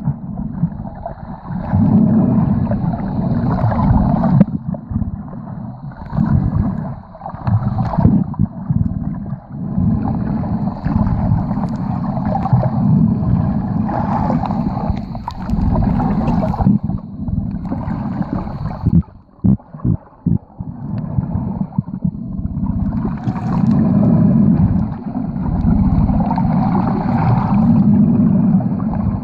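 Muffled water sloshing and gurgling, heard underwater as the snorkeler moves over the seabed. It swells and fades, and drops away briefly about two-thirds through, with a few short knocks in the gap.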